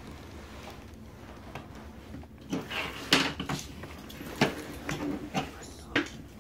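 Handling noise from a phone being moved about in the hand: scattered knocks and rubbing that start about two and a half seconds in, over a low room hum.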